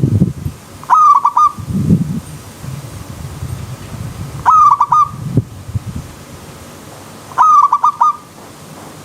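Zebra dove (perkutut) cooing: three short phrases of quick staccato notes a few seconds apart, each with a sharp first note, over a background of running stream water with low gurgles.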